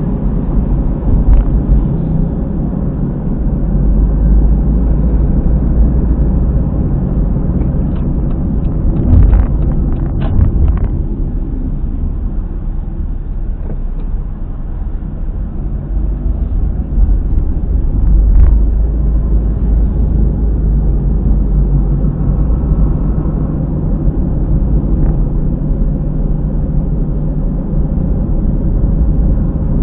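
Honda car driving, heard through a dashcam, with steady road rumble and a droning noise from near a rear wheel that is typical of a failing hub bearing. A few short clicks or knocks come a third of the way in and again a little past the middle.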